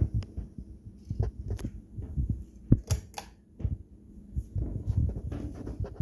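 Irregular knocks, thumps and clicks of handling and movement, with a switch clicking as the ceiling fan's lights are turned on.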